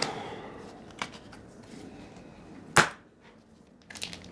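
A few light clicks and taps as trading cards are handled, the sharpest a little under three seconds in, then a foil booster pack wrapper starting to crinkle near the end.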